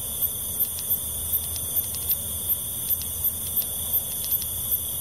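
Night insects chirping in a steady high-pitched chorus, with regular chirps about three a second.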